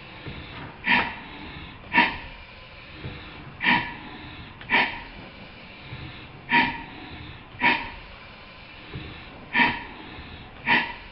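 Stuart 5A single-cylinder model steam engine running slowly, its exhaust puffing in an uneven beat: pairs of sharp chuffs about a second apart, with a longer gap between the pairs, over a steady hiss.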